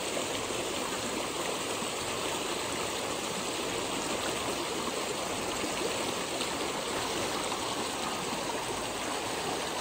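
Hill stream (gadhera) rushing steadily, an even, unbroken noise of flowing water.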